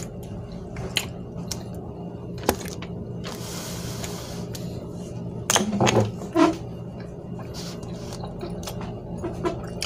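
Steady low room hum with a few light knocks and handling noises, and a brief vocal sound a little past halfway.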